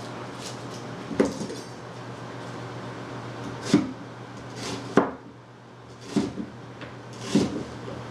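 A chef's knife slicing an onion on a plastic cutting board: about five separate sharp knocks of the blade striking the board, spaced roughly a second apart.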